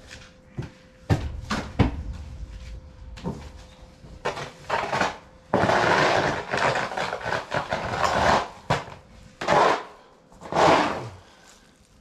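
A barn stall being cleaned out: two sharp knocks, then several rough scraping strokes, the longest lasting about three seconds.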